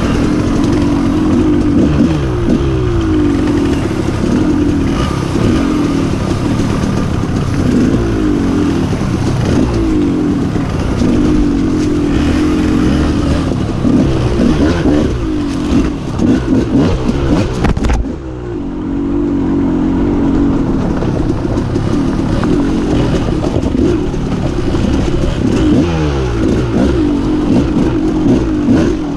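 Two-stroke dirt bike engine being ridden, revving up and falling back over and over as the throttle opens and closes. It eases off briefly about two-thirds of the way through.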